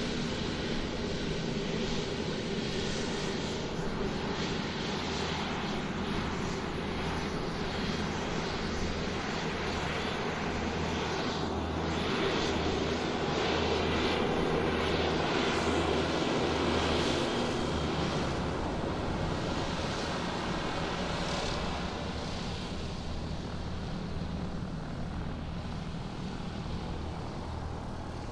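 Airplane engine running as the aircraft taxis on the ground, a steady drone that swells louder through the middle and eases off near the end.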